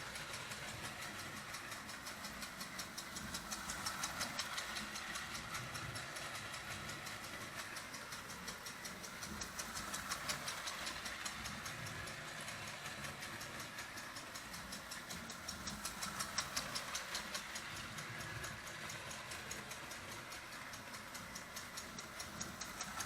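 Marx O27 toy steam locomotive running around an oval of tinplate track, its chug-chug sound unit ticking rapidly and evenly: a metal tab driven by the connecting rod taps a diaphragm. The running noise swells and fades every several seconds as the train circles the oval.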